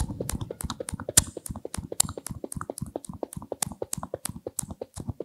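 Vocal mimicry of a hand-cranked generator engine running: a fast, even chugging of mouth clicks and puffs, about seven a second.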